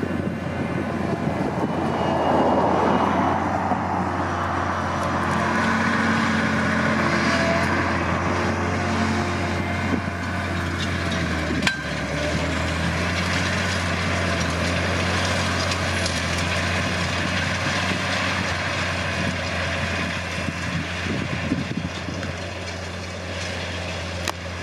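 Caterpillar Challenger MT875C rubber-tracked tractor's big diesel working steadily under load as it pulls a heavy breaker cultivator through stubble, with the rushing rattle of the implement in the soil over the engine's low hum.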